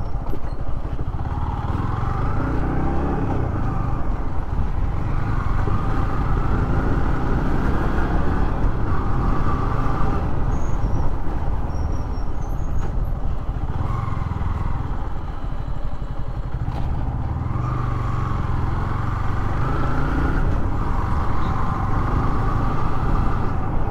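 Motorcycle engine running as the bike is ridden, its note rising and falling with the throttle over a steady low rumble.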